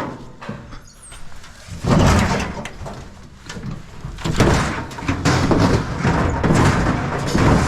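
A vehicle's back door being shut, with a knock near the start and longer stretches of scraping, rattling handling noise.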